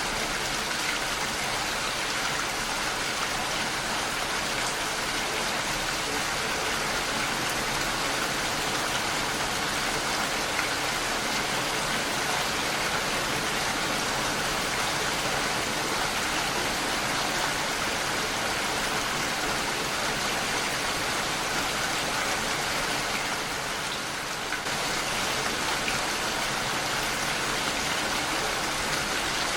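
Heavy rain falling steadily and pattering on a window pane, a dense even hiss with a brief slight lull near the end.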